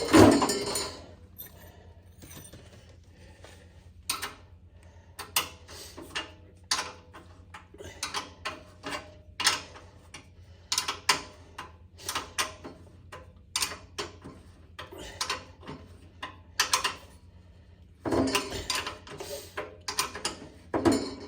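A wrench working the bolts that hold casters to a belt sander's feet: a string of short metallic clicks, roughly one or two a second, with louder metal clatter at the start and again near the end.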